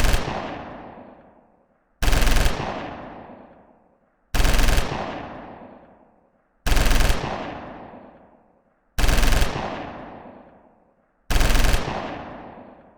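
Machine gun firing short bursts of about half a second each, repeated roughly every two and a quarter seconds, about five bursts in all, each followed by a long echoing fade.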